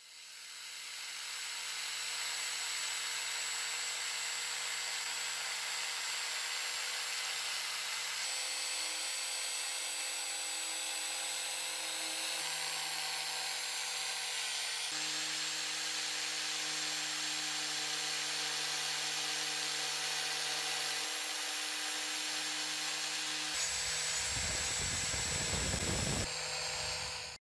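Power tool spinning an abrasive disc against a painted steel tool part, stripping the paint back to bare metal: a steady motor whine under a constant grinding hiss. It swells in over the first couple of seconds, a deeper rumble joins near the end, and it cuts off suddenly.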